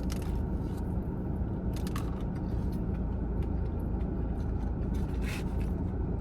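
Someone chewing a crispy, batter-fried Korean corn dog, with faint crunching clicks over a steady low rumble.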